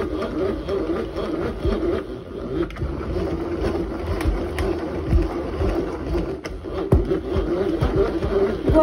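Hand-crank manual food chopper being cranked hard, turned the reverse way, its blades churning mashed avocado: a steady plastic grinding and whirring with frequent knocks and clatters.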